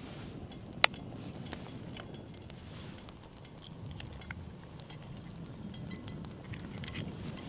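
A single sharp tap about a second in, an egg rapped against a cast-iron skillet, over the low crackle of a wood fire in a small camp stove. The egg is then broken into the hot oil, with light ticking and a faint sizzle near the end.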